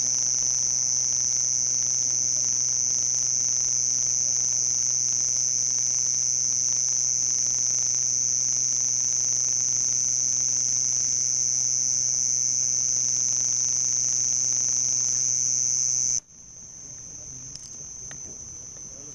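Male house cricket (Acheta domesticus) stridulating, rubbing its raised forewings together in a continuous high-pitched song. The song drops much quieter abruptly near the end.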